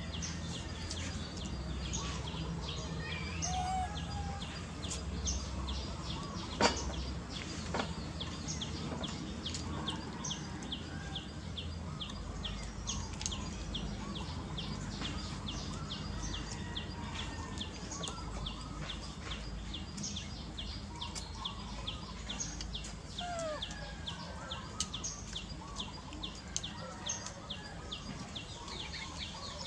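Outdoor ambience: a steady rhythm of short high chirps, about two to three a second, over low background noise. A few brief whistled calls come and go, and there is one sharp knock about seven seconds in.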